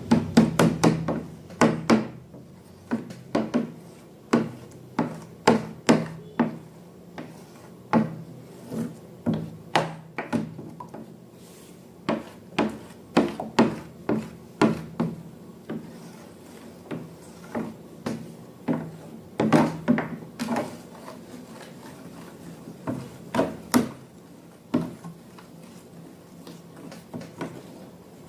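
A run of sharp clicks and taps, irregular and about one or two a second, from small objects being worked by hand, with a low hum near the start.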